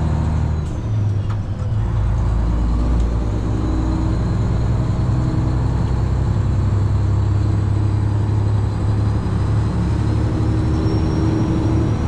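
Freightliner Classic XL semi truck's Detroit Diesel Series 60 12.7-litre engine pulling steadily at road speed, heard from inside the cab with road noise. The engine note dips briefly about a second in, then runs on steady.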